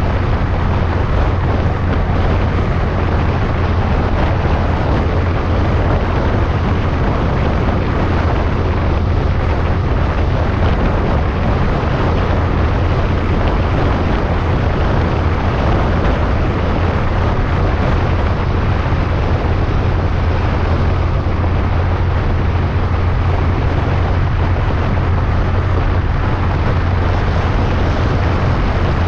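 Steady wind rush and road noise from a vehicle travelling at constant speed, with an unchanging low drone underneath and no let-up.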